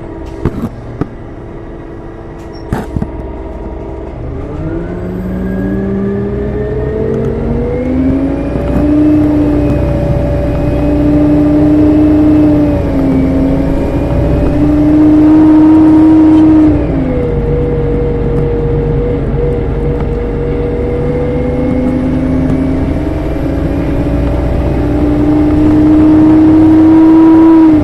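Detroit Diesel Series 50G natural-gas engine of a NABI 40-LFW transit bus, revved up while standing still. Its pitch climbs slowly a few seconds in and holds high with a faint high whine above it. It eases off sharply a little past halfway, then climbs and holds high again.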